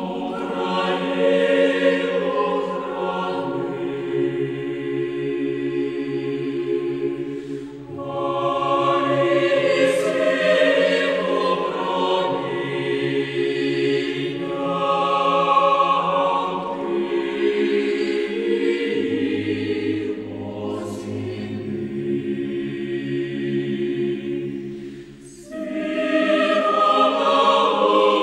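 Choral music: a choir singing a slow song in long held phrases, dipping briefly near the end before swelling again.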